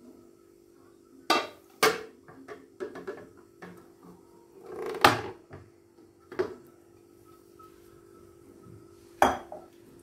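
Glass bowl and glass serving plate knocking and clinking against each other and on a granite countertop as a set pudding is turned out of the bowl. A handful of sharp knocks, the loudest about five seconds in.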